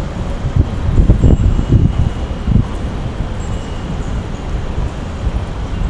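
Steady low rumble of city street noise, with a few louder low thumps between about half a second and two and a half seconds in.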